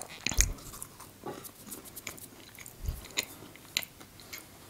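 Close-up eating sounds of flaky puff pastry. A crisp bite comes about half a second in, followed by chewing with scattered light crackles of the pastry layers.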